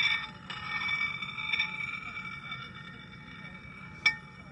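Handmade glass spinning top spinning on a ceramic plate: a steady ringing hum of a few high tones that slowly fades, with a single sharp clink about four seconds in.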